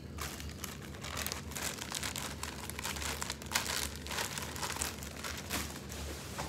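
Clear plastic bag crinkling and rustling in irregular bursts as clothes are handled and unpacked from it.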